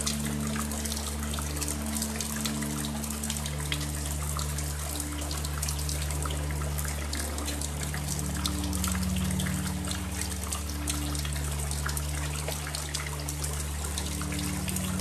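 Steady rain with dense dripping and water trickling, under a low droning hum.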